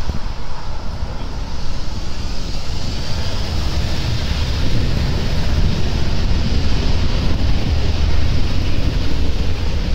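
Jet engine noise from a landing Airbus A380's four engines, a steady noise that swells about three seconds in, mixed with wind buffeting the microphone.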